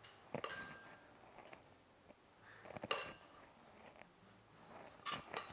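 Metal spoon clinking and scraping against a stainless-steel mixing bowl and glass baking dish while scooping oat crumble, in three short bursts of clinks about half a second in, near the middle and near the end.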